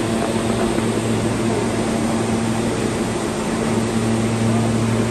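Steady mechanical hum and rush of a subway train standing still, its ventilation and equipment running at an even pitch.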